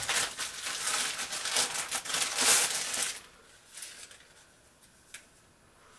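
Protective wrapping crinkling and rustling as it is pulled off a headphone stand by hand, for about three seconds, then much quieter handling with one light click about five seconds in.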